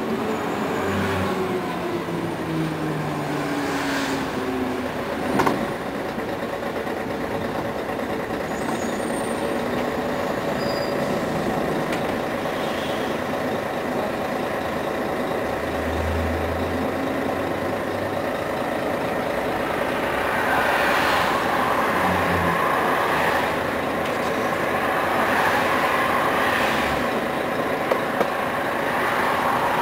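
Scania CN113ALB articulated city bus heard from inside the cabin: its diesel engine winds down in pitch as the bus slows to a stop, with a sharp knock about five seconds in. The engine then idles steadily while the bus stands, with a louder rushing noise from about twenty seconds in.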